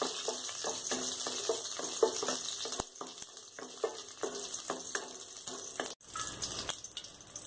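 Hot oil sizzling in a kadai with green chillies and whole spices, a wooden spatula scraping and stirring them in repeated strokes. After about three seconds the stirring stops and the sizzle goes on more quietly, briefly cutting out about six seconds in.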